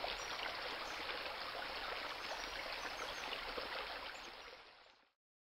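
Soft, steady sound of running water, like a trickling stream, fading out about four and a half seconds in.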